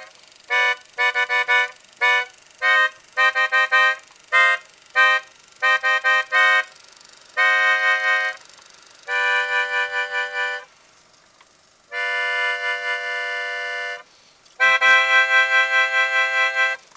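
A reedy, accordion-like free-reed instrument playing chords: a quick run of short, choppy chords, then four longer held chords in the second half.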